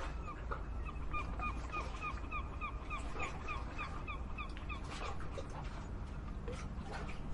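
Harbour ambience: a bird gives a rapid series of short, repeated calls, about five a second, for the first three to four seconds, over a steady low rumble and scattered knocks.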